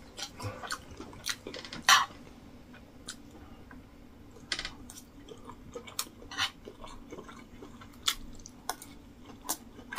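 A person eating rice and stew with a spoon from a plate: scattered short clicks of the spoon on the plate and mouth-close chewing sounds, the loudest click about two seconds in.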